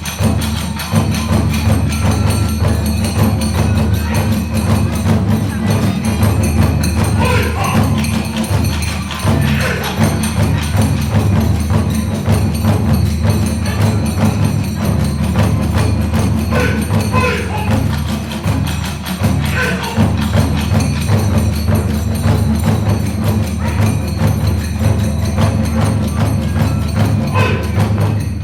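Kagura ensemble music: large and small taiko drums beating a fast, driving rhythm, with the brassy clash of tebyōshi hand cymbals.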